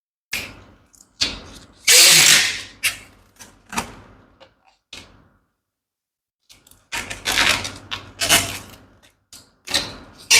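Latex balloons being handled and tied: irregular bursts of rubbery rubbing, stretching and snapping, with a pause of about a second and a half midway.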